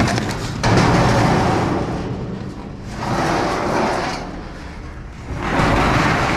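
Garage door sections scraping and grinding as they are dragged out over other scrap, in three long drags.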